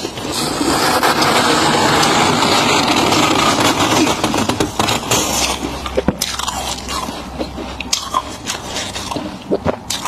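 Gloved hand scraping and scooping thick, fluffy frost from the inside walls of a chest freezer: a loud, dense crunching scrape for about the first five seconds, then quieter scattered crackles as a handful of frost is gathered.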